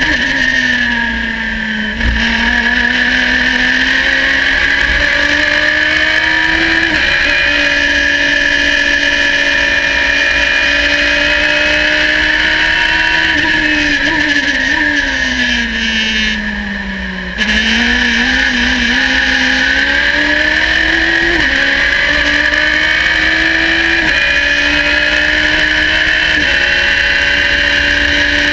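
Radical race car's motorcycle-derived engine running hard at racing speed, heard from the open cockpit. Its note rises and falls with the throttle through the corners. The engine eases off briefly early on, eases off for longer about halfway through, then comes back on hard.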